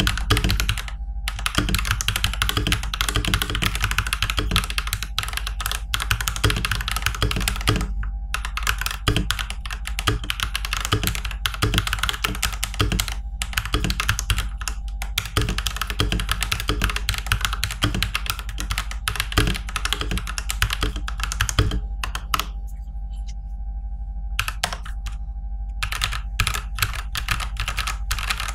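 Continuous fast typing on a stock TM680 (Gamakay LK67) mechanical keyboard fitted with Tecsee Purple Panda tactile switches and factory-lubed plate-mount stabilizers, with brief pauses between bursts. The stock board has a somewhat echoing sound.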